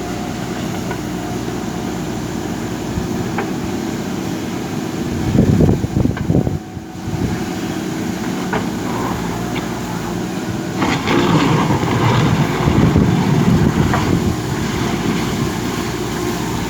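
JCB backhoe loader's diesel engine running steadily, with a few knocks and two louder, rougher stretches about five and eleven seconds in.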